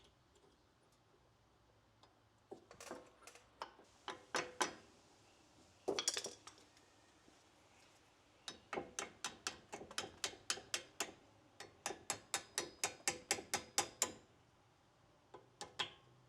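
A ratcheting hand tool clicking, a few scattered strokes and then a steady run of about three clicks a second in the second half, as the brake caliper piston is turned to line up its pin holes.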